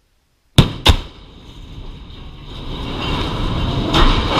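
Two sharp explosive blasts about a third of a second apart: the cutting charges severing the dragline crane's support cables and steel plates. They are followed by a swelling rumble as the steel lattice boom falls, peaking with a heavy crash as it hits the ground near the end.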